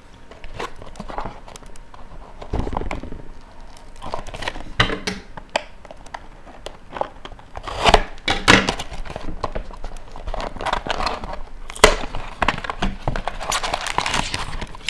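A box of hockey cards being unwrapped and opened by hand: irregular crinkling and crackling of plastic wrap and cardboard, with several sharp knocks, the loudest about eight and twelve seconds in.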